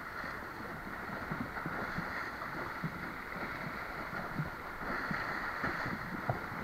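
River water running steadily, with scattered small splashes and ticks.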